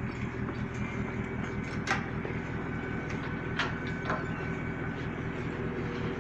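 Fishing trawler's engine running steadily, with a few short sharp knocks about two seconds in and again around three and a half and four seconds.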